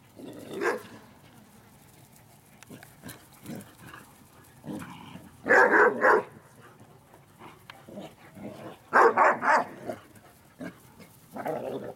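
Puppies barking in short quick runs during rough play, the loudest runs about halfway through and again a few seconds later.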